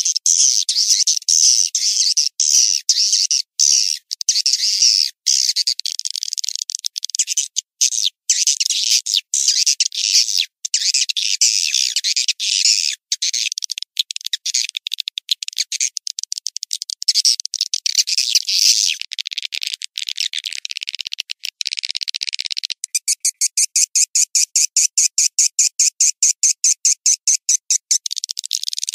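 Swiftlet call track, the lure sound played to draw swiftlets into a swiftlet house: dense, high, thin chirping and twittering with no low end. About 23 seconds in it changes to a fast, even pulsing of about eight chirps a second for some five seconds, then the twittering resumes.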